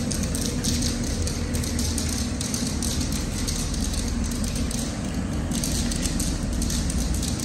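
Steady rush of air with a low hum from an extraction blower drawing air through a mobile spray booth and its flexible duct hose, with irregular light crackling over it.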